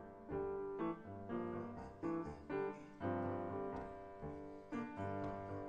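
Solo piano music: chords and melody notes struck at an unhurried pace, each note ringing on and fading under the next.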